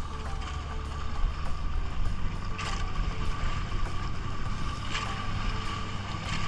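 A vehicle running steadily with a constant low hum and a thin steady whine, with a couple of brief knocks.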